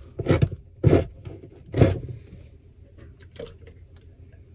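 Handheld can opener cutting around the lid of a can of coconut milk: three loud turns about a second apart, then fainter clicks.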